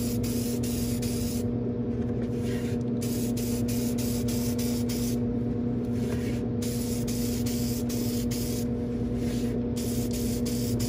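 Aerosol spray can of clear acrylic matte sealer hissing in several bursts of one to two seconds, with short pauses between them, over a steady low hum.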